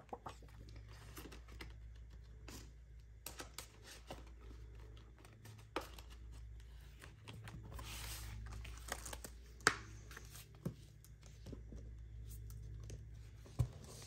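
Faint handling sounds of paper and plastic: scattered light clicks and taps with a short rustle about eight seconds in, as cash and savings-challenge binders are handled, over a low steady hum.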